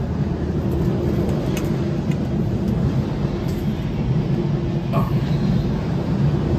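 Steady low rumble of a passenger train carriage with a faint steady hum, and a few light clicks as the latches of a folding upper sleeping berth are worked.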